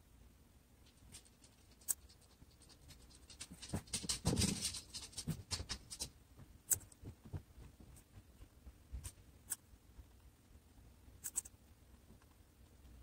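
Guinea pig chewing a piece of raw carrot: crisp crunching clicks, a dense run of bites about four seconds in, then scattered single crunches.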